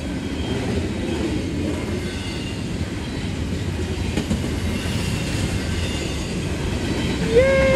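Double-stack intermodal freight train rolling past: a steady rumble and clatter of well-car wheels on the rails, with faint wheel squeal. A louder pitched squeal starts near the end and falls slightly in pitch.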